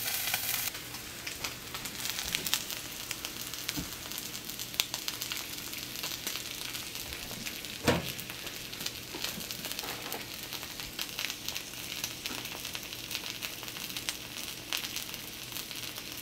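Smoked bacon and potato wedges sizzling in fat in a small cast-iron skillet, a steady hiss with many small crackles. One dull knock about halfway through.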